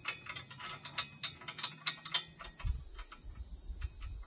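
Hand socket ratchet clicking in quick, uneven strokes as bolts are tightened on a side-by-side's front bumper.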